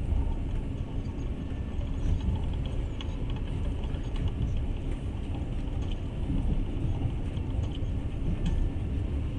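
Passenger train running, heard from inside the carriage: a steady low rumble from the wheels and car body, with a few faint ticks.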